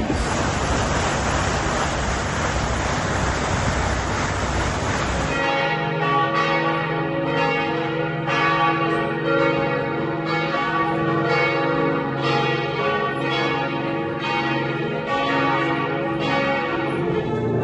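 A broad rushing noise for about five seconds, then church bells ringing in a continuing peal, struck roughly once or twice a second with long ringing tones.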